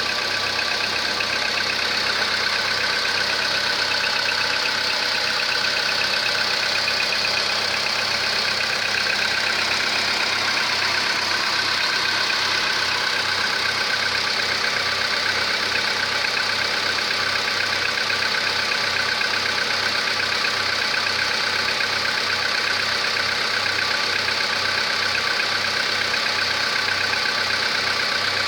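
Volkswagen Polo Sedan petrol engine idling steadily with a regular knock in its running, which the owner suspects is piston knock even though the engine already has the updated pistons.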